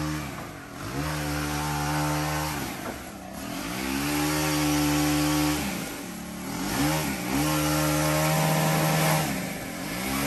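A handheld two-stroke power tool, a chainsaw or gas hedge trimmer, running at full throttle in bursts of about two seconds. Between bursts the engine drops off and swoops back up, about four times, as the laurel hedge is cut.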